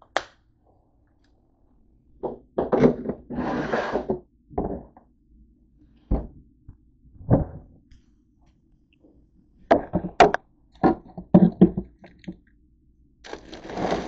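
Household handling noises: a string of knocks and clunks from objects being picked up and set down, with rustling stretches about three seconds in and near the end as a plastic bin of packets is opened.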